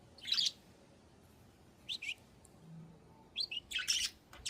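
Budgerigars chirping: a short chirp near the start, a quick pair about two seconds in, then a run of louder chirps near the end.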